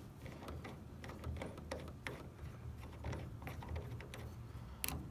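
Short carbon fiber antenna mast being screwed by hand into the Subaru Forester's roof antenna base: small irregular ticks and clicks from the threads and fingers turning it, over a low steady rumble.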